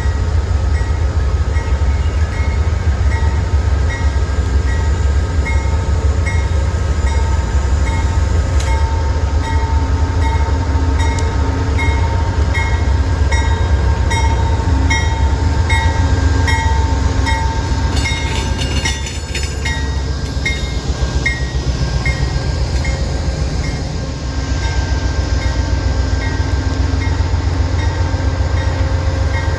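Amtrak diesel locomotive standing at the platform with its engine running in a steady low rumble, while a bell rings in a regular beat a bit under twice a second as the train prepares to depart. A short hiss cuts across it about 18 seconds in.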